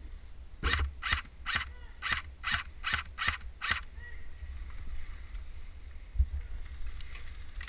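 A run of about eight footsteps, a little under half a second apart, over a low rumble of wind on the microphone.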